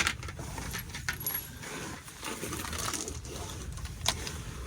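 Scattered light metallic clinks and rattles, the loudest right at the start and one with a short ring about four seconds in: a starter bolt dropped from the hand clattering among metal parts, and the hand rummaging for it.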